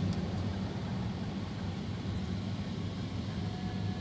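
Steady low rumble of a car in slow traffic: engine and road noise.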